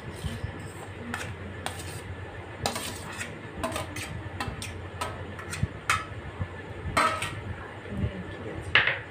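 Steel bowl clinking and knocking against a stainless steel plate as boiled potato cubes are tipped out onto it: irregular sharp clinks, several with a short metallic ring, the loudest near the end.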